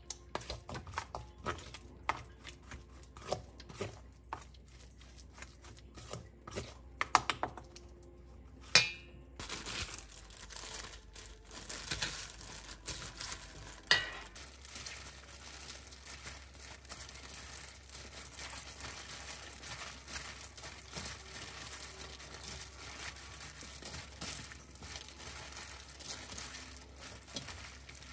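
A spoon clicking and scraping against a stainless steel bowl while stirring thick chili seasoning paste. After about nine seconds it changes to a steady rustle and crinkle: plastic-gloved hands toss cut green onions through the seasoning in the bowl.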